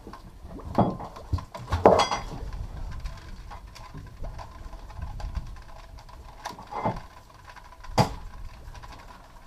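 Scattered knocks and clunks of gear on a fishing boat's deck and rail, four or five sharp ones spread through the stretch, the loudest about two seconds in, over a low steady rumble.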